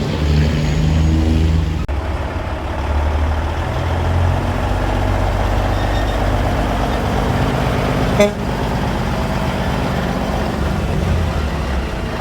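Big truck running with a heavy, steady low rumble, and a short horn toot about eight seconds in.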